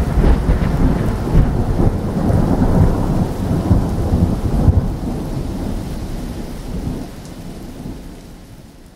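A long roll of thunder that breaks in suddenly, rumbles low and heavy, then slowly dies away, over a hiss of rain.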